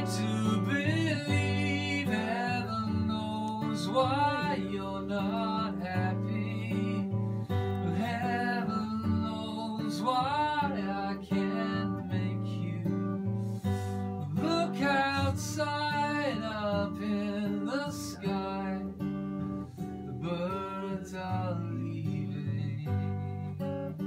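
Acoustic guitar being played, strummed and picked, with a man's voice singing a slow song over it in several phrases.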